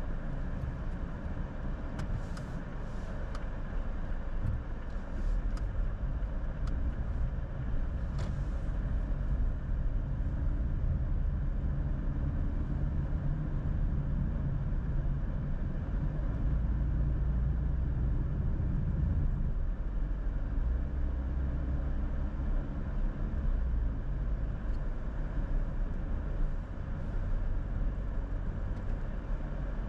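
Car driving along the road: steady low engine and road rumble, with a few faint clicks in the first several seconds.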